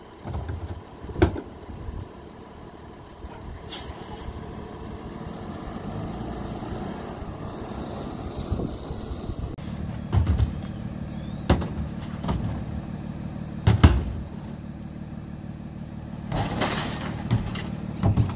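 Freightliner M2 Heil rear-loader garbage truck's diesel engine running steadily while litter bins are dumped into its rear hopper. Several sharp knocks of the cans striking the hopper, the loudest about three-quarters of the way through.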